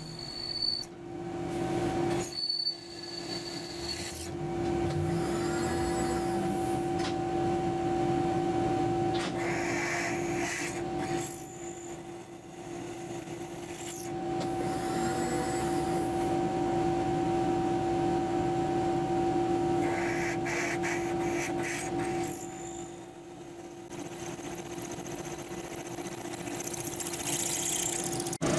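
Drill press running with its motor humming steadily while the bit cuts a cross hole through a chrome-plated steel shaft; the cutting noise comes and goes in several stretches. The bit is chattering because the shaft is not held rigidly enough.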